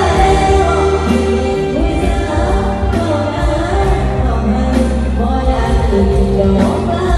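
A young girl sings through a PA system over a loud backing track with a heavy bass line, holding long notes.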